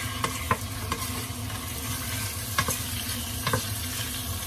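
Raw chicken pieces sizzling as they fry in hot oil in a stainless steel pot, with a spatula clacking against the pot now and then as they are stirred.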